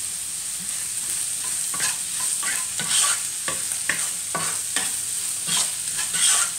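Sliced onions with green chillies and curry leaves sizzling in hot coconut oil in a kadai, being sautéed. From about a second and a half in they are stirred with a wooden spatula in quick, regular strokes, about two or three a second, each scraping across the pan.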